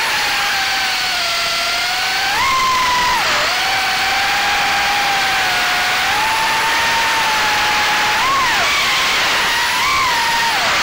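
FPV quadcopter's brushless motors and propellers whining in flight, heard from the onboard camera. The pitch rises and falls with the throttle: a jump about two seconds in, a dip a second later, and more quick swells near the end, over a steady rushing hiss of wind and prop wash.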